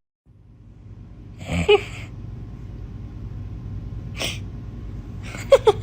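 Two short sneezes, about two and a half seconds apart, followed near the end by a quick run of short pitched sounds.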